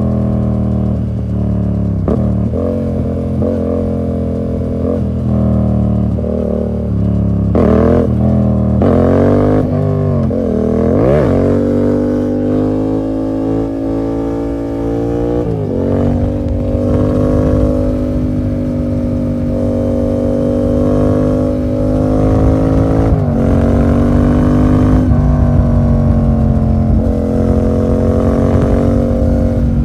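2015 Yamaha MT-07's parallel-twin engine through an SC Project full exhaust with the dB killer removed, under way. For the first ten seconds or so the pitch rises and falls repeatedly with throttle and gear changes. After that it holds a steadier, higher note, with quick shifts a little past the middle and again about three-quarters through.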